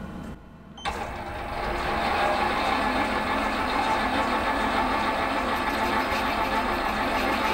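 Metal lathe switched on with a click about a second in, its motor and spindle running up to speed and then running steadily.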